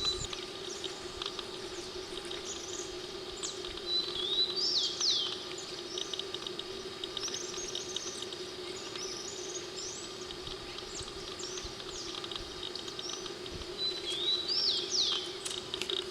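Wild birds calling: scattered short high chirps, and twice, about ten seconds apart, a longer whistled phrase that starts on a level note and breaks into quick looping swoops. A steady low hum runs underneath.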